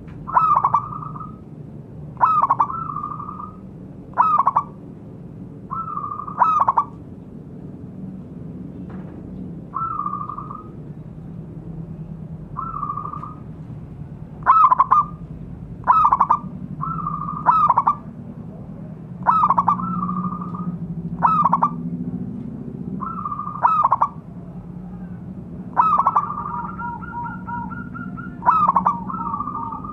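Zebra doves cooing: short trilled coo phrases repeated every one to two seconds, with two birds calling over each other near the end. A low steady hum runs underneath.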